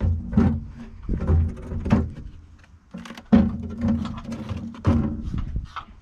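A battery being lowered and shifted into a steel battery box, with a series of knocks, thuds and scrapes of metal and plastic against the box; the loudest knock comes about three seconds in.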